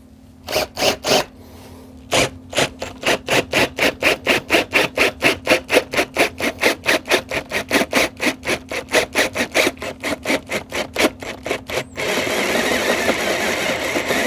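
Twist drill bit cutting into an aluminium heatsink block: a scraping cutting noise that pulses about four times a second, then turns into a continuous grind about twelve seconds in, over a steady low motor hum.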